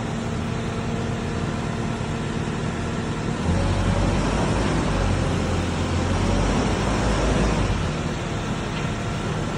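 New Holland C238 track skid steer's diesel engine running steadily, then getting louder with a deeper rumble and shifting pitch from about three and a half seconds in until near the end, before settling back.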